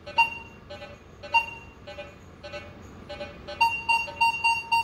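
Minelab Vanquish 540 metal detector with its small V8 coil giving short beeps as it is swept over a nail-board test, some with a lower iron tone mixed in. Near the end it settles into a quick run of high beeps, about four a second, as it picks the Indian head penny out from among the nails.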